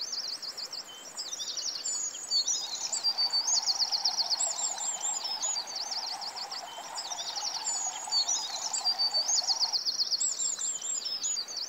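Songbirds chirping and trilling, with quick runs of high repeated notes and short whistled phrases overlapping throughout.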